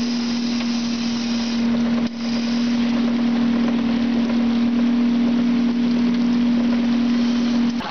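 Boat motor running at a steady pitch, with water rushing past the hull and net frame; it cuts off abruptly just before the end.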